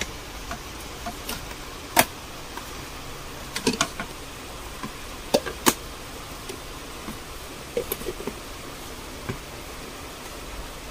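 Plastic storage containers being handled, giving scattered sharp clicks and knocks, the loudest about two seconds in, over a steady background hum.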